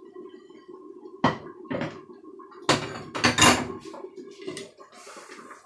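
Crockery knocking on a kitchen counter as plates and a bowl are set down and moved: two sharp knocks, then a louder clatter about three seconds in, over a steady low hum. A soft hiss starts near the end.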